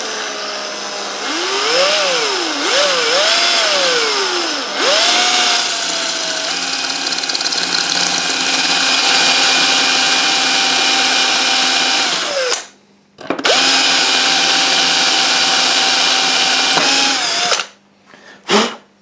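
Electric drill with a masonry bit grinding a hole through a glazed ceramic tile. The motor speed rises and falls for the first few seconds as the bit is started on the slippery surface. It then runs steadily at high speed, stops briefly about twelve seconds in, runs again, and stops near the end.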